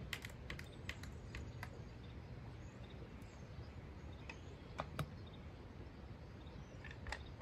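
Scattered light clicks and taps as a new Red Max GZ360 chainsaw's plastic housing and parts are handled, a quick run of them in the first second and a half and a few more around five seconds in, over a faint low outdoor rumble.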